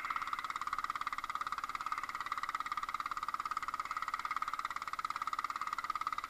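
A small fishing boat's engine running steadily at cruising speed, a fast, even pulsing that does not change.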